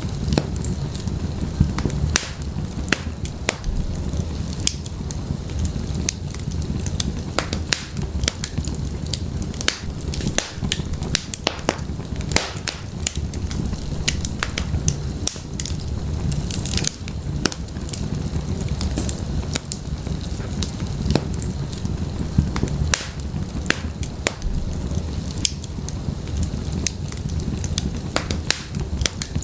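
Wood fire burning in an open fireplace: frequent sharp, irregular crackles and pops of burning firewood over a steady low rumble of the flames.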